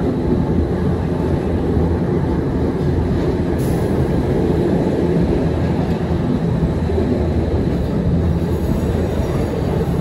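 Gornergrat Railway electric rack-railway train running, a steady loud rumble heard from inside the carriage.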